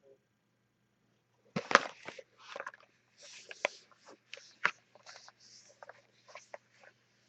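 Plastic wrapping crinkling and crackling as boxes of trading cards are handled: an irregular run of sharp crackles and rustles that starts about a second and a half in, loudest just after it starts.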